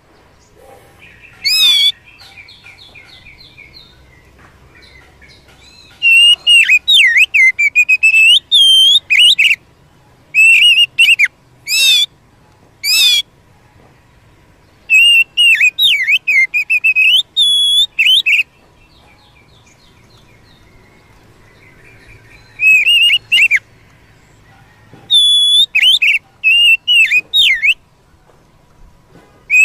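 Oriental magpie-robin singing loud bouts of clear whistles and quick sliding, warbling notes, with fainter twittering between the bouts.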